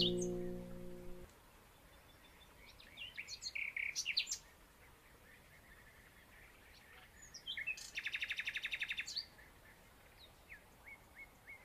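Small birds chirping faintly in short, scattered calls, with one fast trill about eight seconds in. The last chord of an acoustic guitar dies away in the first second or so.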